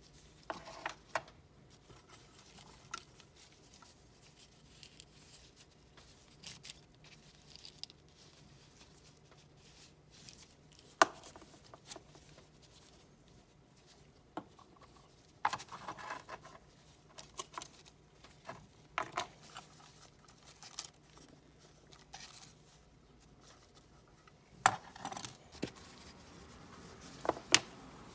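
Scattered clicks, knocks and scrapes of small objects being handled, with a sharp knock about 11 seconds in and clusters of clatter in the middle and near the end.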